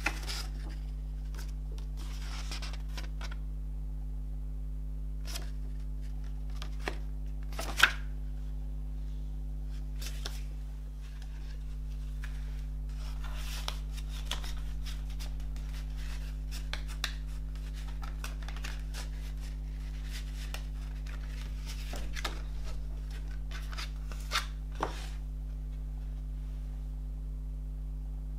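A paper CD booklet and card inserts being leafed through and handled: soft paper rustles and a few light taps, with one sharp click about eight seconds in, over a steady low hum.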